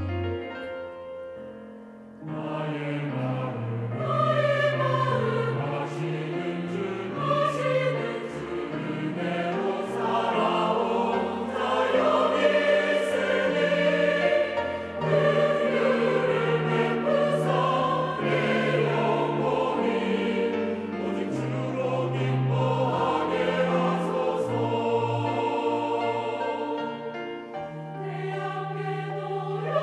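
Mixed church choir singing a Korean sacred anthem in full harmony, coming in loudly about two seconds in after a brief quieter fade.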